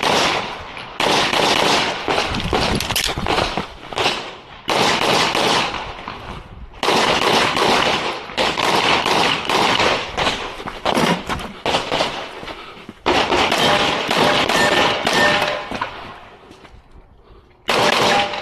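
Rapid handgun fire in quick strings of shots, broken by short pauses, with a longer lull shortly before the end and a final string after it.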